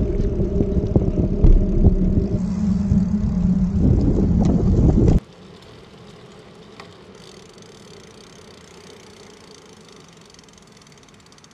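Loud wind buffeting on the Insta360 One X2's built-in microphones while cycling, with a steady low hum under it. About five seconds in it cuts off suddenly to much quieter sound from a Rode Wireless Go 2 with a furry windshield on the bike frame: a faint, even rolling noise of the bicycle with only a little wind and an occasional click.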